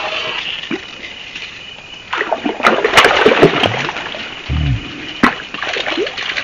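A hooked fish thrashing at the surface of shallow stream water, throwing up splashes, with a cluster of splashes about two to three and a half seconds in and a sharp slap near the end.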